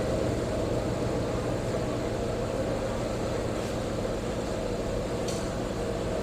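Steady mechanical hum with low droning tones, unchanging throughout, and one faint tick about five seconds in.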